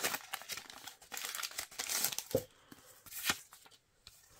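A blind mystery pack's wrapper being torn open and crinkled by hand: a run of dense crackling for about two and a half seconds, then quieter handling with a single click.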